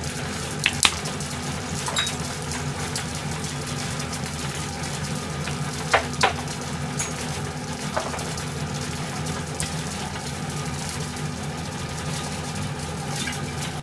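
A few sharp clicks and taps of a plate and bottles being set down on a stainless-steel counter while soy sauce and vinegar are poured onto the plate, over a steady low mechanical hum.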